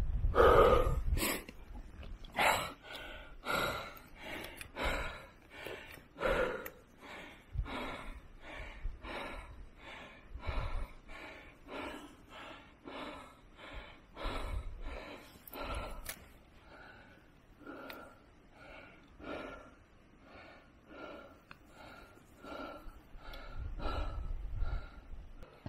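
A person breathing hard and fast, in and out about one and a half times a second, out of breath from climbing a steep mountain slope. A few low rumbles come and go beneath the breathing.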